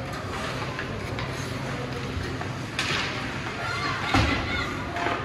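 Ice hockey rink game noise: a sharp scraping burst a little under three seconds in, then a heavy thud against the boards about four seconds in, with faint voices in the background.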